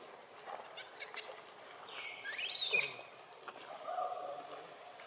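High animal calls over faint rustling. The loudest comes about two seconds in, a call that sweeps down and then climbs quickly in pitch, and a softer, steadier call follows about a second later.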